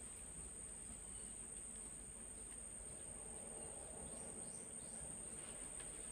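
Insects droning steadily, a constant high-pitched trill over a faint background hiss.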